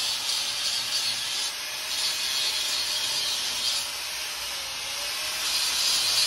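Stick-welding arc burning a 1/8-inch 7018 electrode at about 108 amps on a vertical-up weld. It makes a steady, high hiss that eases slightly a couple of times and grows louder near the end.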